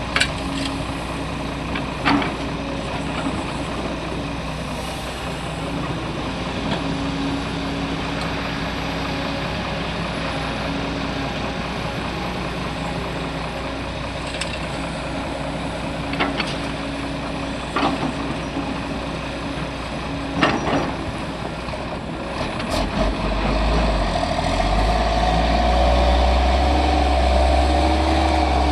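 Heavy diesel machinery running steadily, broken by several sharp knocks or hisses. About three-quarters of the way through, a deep engine rumble swells up and stays loud.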